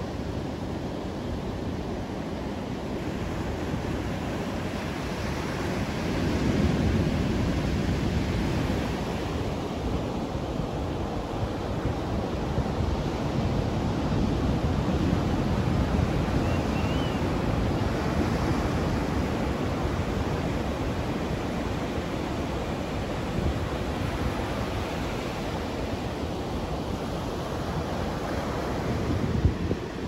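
Ocean surf breaking and washing up a sandy shore: a steady rush of water that swells louder and fades again as the waves come in.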